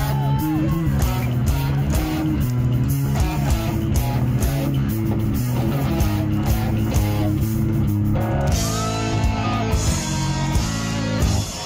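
Heavy metal band playing live: an instrumental passage of distorted electric guitars, bass guitar and drum kit, with no vocals.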